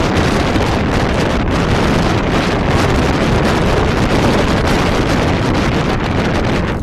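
Wind buffeting the microphone: a loud, steady rush of noise with a heavy low rumble.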